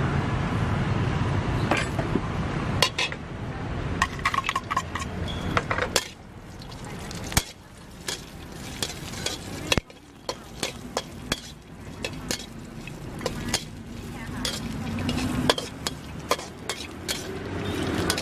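Metal ladle scraping and clinking against a steel wok as chunks of pork belly sizzle in hot oil, with many sharp knocks of the ladle on the pan.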